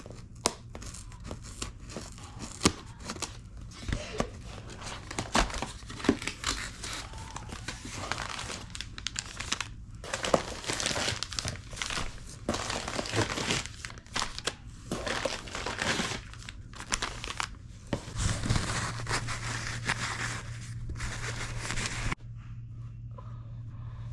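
Packaging being handled: plastic or paper crinkling and rustling with some tearing, in irregular handfuls that stop abruptly near the end.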